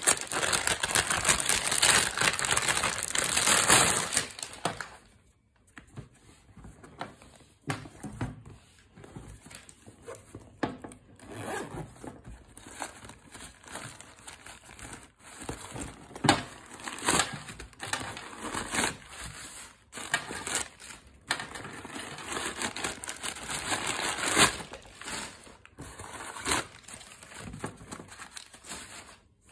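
Plastic wrapping crinkling loudly for about the first four seconds, then on-and-off rustling and crackling of shredded newspaper packing being pulled out of a bag.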